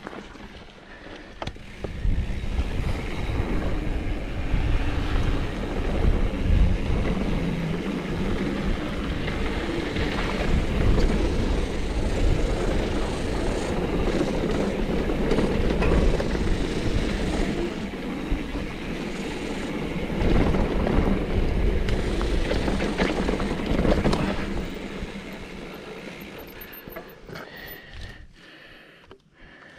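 Mountain bike riding down a steep, rough dirt trail: continuous rumble and rattle of tyres and bike over dirt and rock, dying down over the last few seconds.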